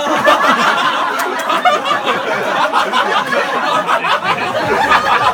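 A group of people laughing and chattering over one another.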